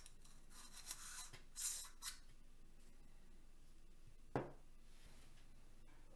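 Hard 3D-printed plastic parts rubbing and scraping against each other as they are twisted together by hand. About four seconds in comes a single knock as the assembled piece is set down on a wooden tabletop.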